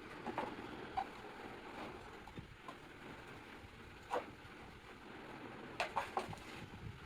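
Handling and cleaning noise from a plastic table fan part: a faint steady rustle with a few light knocks and clicks.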